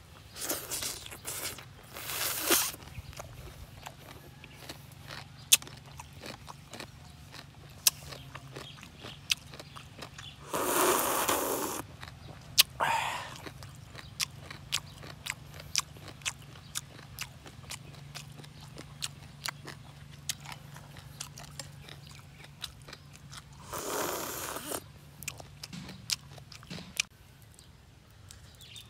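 Close-up eating sounds of a man eating shredded green papaya salad with shrimp: chewing and crunching with many sharp wet mouth clicks, and a few louder slurps of the papaya strands, the longest about eleven seconds in.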